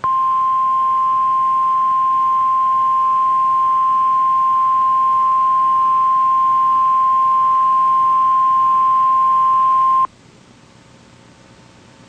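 NOAA Weather Radio warning alarm tone, a single steady 1050 Hz tone sounded as part of the required weekly test of the alert system. It holds for about ten seconds, then cuts off suddenly, leaving faint radio static.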